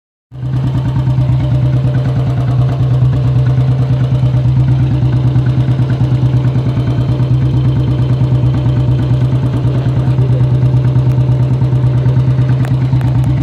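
Motorcycle engine idling, its exhaust giving a steady, even thumping beat.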